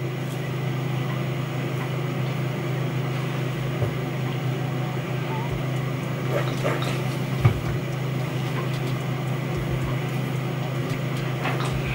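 A steady low hum, with a few faint, soft handling sounds and a light click about halfway through.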